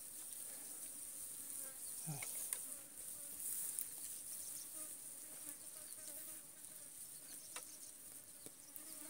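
Steady, high-pitched chirring of insects in the grass and brush, with a faint low buzzing of flies around the food.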